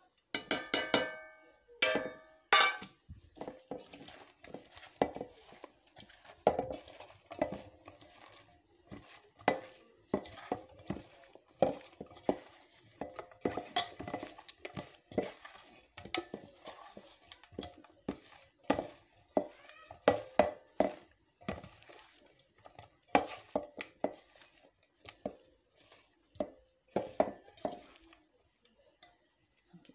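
Bitter gourd slices being mixed by hand with spice powders in a stainless steel pot: irregular knocks and scrapes of the pieces and hand against the steel. A few ringing metal clinks in the first three seconds as the steel bowl of spices meets the pot.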